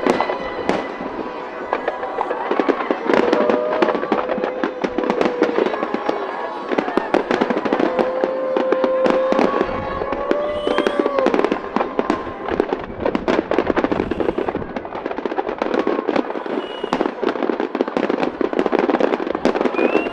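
Fireworks display in a dense, continuous barrage of rapid bursts and crackling, with a few held tones sounding over it.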